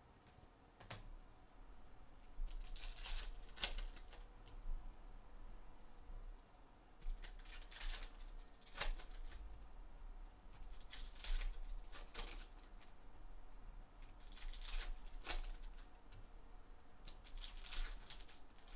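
Foil wrappers of Donruss Optic football card packs crinkling and tearing as packs are opened by hand, in about six short crackly bursts a few seconds apart, with light clicks of cards being handled between them.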